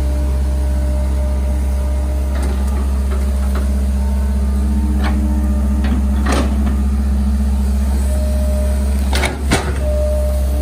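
Hitachi hydraulic excavator's diesel engine running steadily under digging load, with a few sharp knocks of the bucket and linkage. The loudest is a double knock about nine seconds in.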